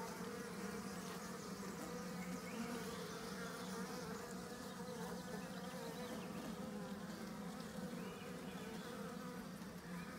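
Honeybees buzzing on an open mating-nuc frame: a steady, even hum of many wings.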